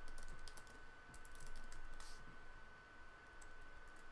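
Typing on a computer keyboard: a quick run of keystrokes, a pause of about a second just past the middle, then a few more taps. A faint steady high-pitched tone runs underneath.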